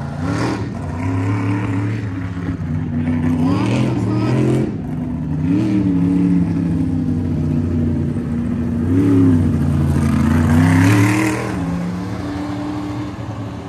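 Monster truck engine revving up and down several times as the truck drives, loudest a little after halfway and easing off near the end.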